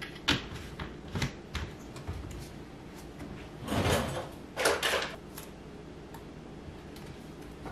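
A plastic trigger sprayer being fitted and screwed onto a plastic spray bottle: a few light plastic clicks and knocks in the first two seconds. A little later come two short breathy rushes of noise about a second apart.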